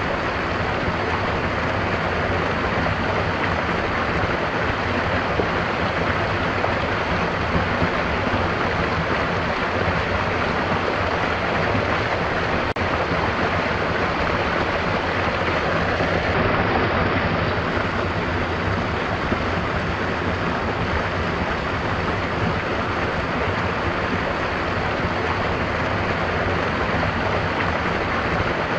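Stream water flowing and rushing steadily, with no break or change.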